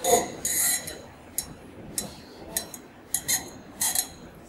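Wine bottle being opened with a corkscrew: a string of short, sharp clicks and small glassy knocks, roughly every half second, as the screw is worked into the cork.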